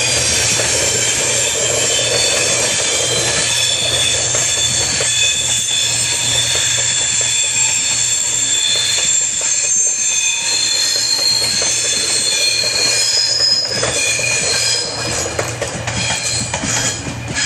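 Passenger train coaches running around a curve, the wheels squealing in several steady high-pitched tones over the rumble of the wheels on the rails. It fades near the end as the last coach passes.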